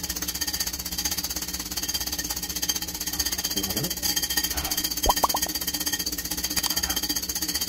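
Wire whisk beating egg whites by hand in a small ceramic bowl: a fast, steady clatter of the wires against the bowl.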